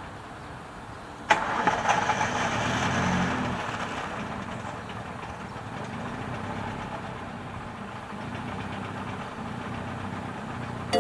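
An engine starting with a sudden loud catch about a second in, then running steadily.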